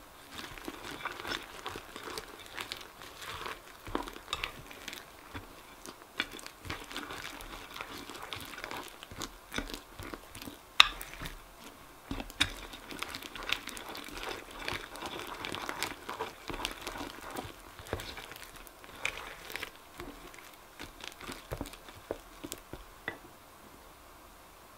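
A hand squishing and folding thick slime with pieces of real candy mixed through it: irregular crackling and clicking with sticky squelches. It dies away shortly before the end.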